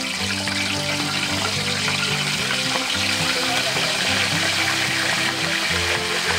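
Whole pork legs sizzling and crackling as they deep-fry in hot oil in a wok, under background music with held, stepping notes.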